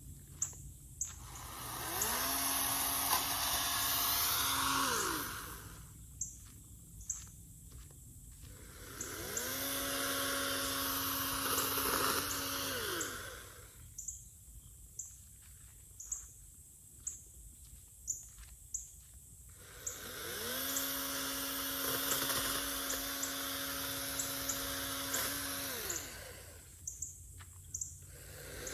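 Toro chainsaw's motor spinning up, running for a few seconds and winding down, three times over, with a hissing rasp over the motor tone while it runs. Sharp clicks come in the pauses between runs.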